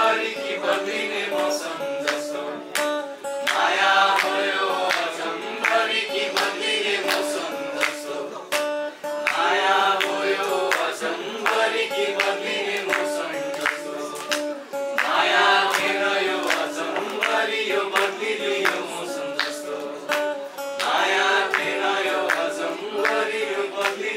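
Acoustic guitar strummed live while a group of people sing along together, with hand claps keeping time.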